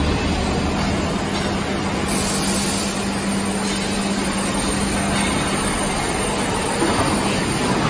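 Four-roll plate bending machine running as its rolls curve a steel plate into a cylinder: a steady low hum over constant mechanical noise.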